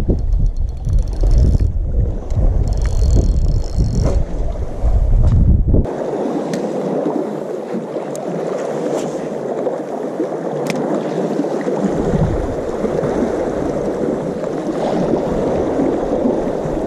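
Wind buffeting the microphone for the first six seconds, then an even wash of sea water among breakwater rocks, with a few faint clicks.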